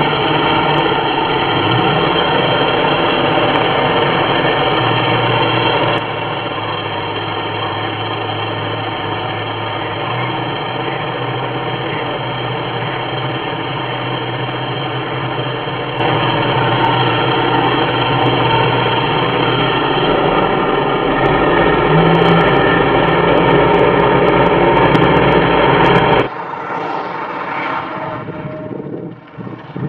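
Chainsaw running steadily, cutting coconut lumber. The level shifts abruptly a few times, and near the end the saw gives way to a quieter, hissy sound.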